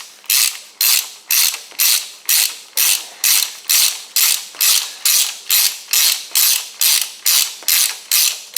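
Ratchet wrench clicking in quick, even back-and-forth strokes, about two a second, running down the hold-down nut on a Cummins 12-valve diesel injector.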